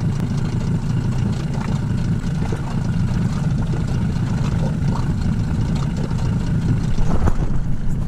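Small boat's tiller-steered outboard motor running steadily at low speed: a low rumble, with a few faint knocks over it.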